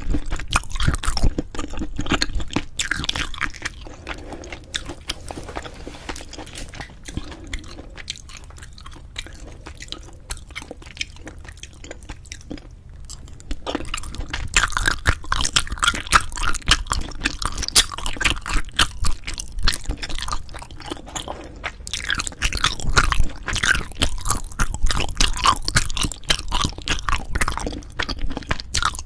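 Close-miked chewing and mouth sounds of someone eating cheese-topped braised spicy chicken: dense runs of small wet clicks and bites. It goes quieter from about four seconds in and picks up again around fourteen seconds.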